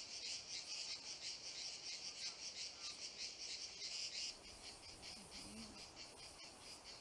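Cicadas singing: a rapid, pulsing high buzz, louder for the first four seconds and softer after that.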